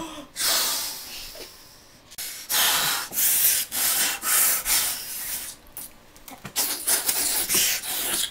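A person breathing out in loud hissing huffs close to the microphone, a string of separate breaths with short gaps between them.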